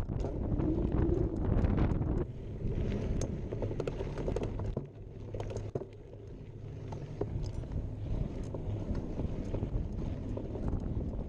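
Mountain bike being ridden on a trail: wind buffeting the chest-mounted camera's microphone over a low tyre rumble, with scattered clicks and rattles from the bike. It is louder for the first couple of seconds.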